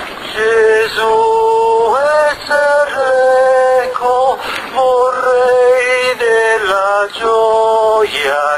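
A singing voice holding the long notes of a slow hymn, each note about a second long, with brief breaks between phrases.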